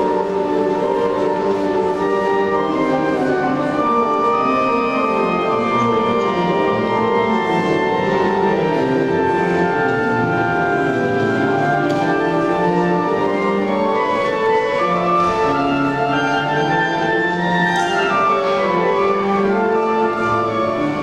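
Instrumental classical music: long held chords with slowly moving melodic lines, played at a steady level.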